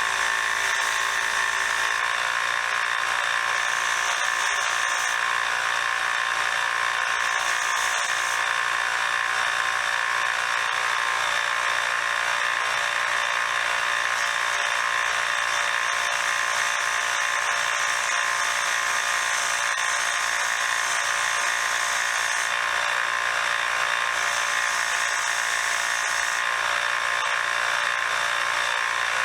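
Belt sander running a surface-conditioning belt, a steady motor-and-belt whir, while screwdriver tips and shafts are cleaned of rust against it; the higher hiss rises and falls every few seconds as the work is pressed on and moved.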